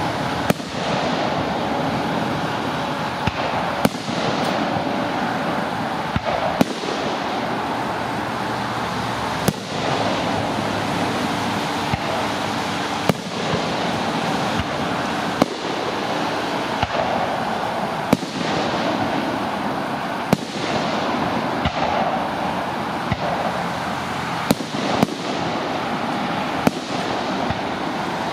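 Aerial firework shells bursting in a display, with about a dozen sharp bangs spaced one to four seconds apart over a steady rushing noise.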